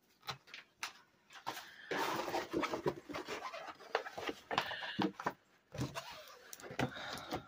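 Crinkling and rustling of a rolled diamond painting canvas and its clear plastic cover film being unrolled and smoothed flat by hand, in irregular crackles and rubs.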